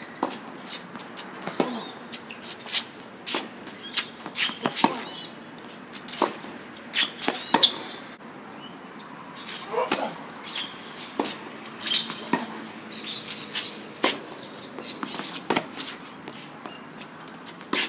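A tennis rally on a hard court: sharp, irregular pops of racquets striking the ball and the ball bouncing, with the players' footsteps.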